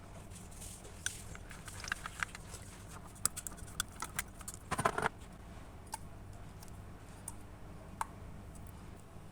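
Pink and blue avalanche slime being handled by hand: scattered sticky clicks and pops, with a dense burst of crackling about five seconds in. A low steady hum runs underneath.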